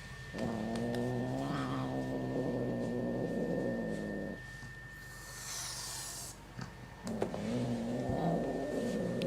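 Angry domestic cat giving two long, wavering, low growling yowls, each about four seconds, with a brief hiss-like noise between them.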